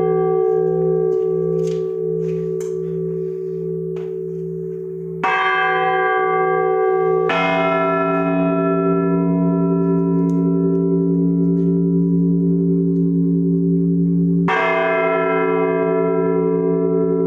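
Church bells tolling the slow death knell for a Pope, heard close from inside the belfry. A few widely spaced strokes are each left to ring on and hum. A new stroke comes about five seconds in, another two seconds later, and a third about seven seconds after that.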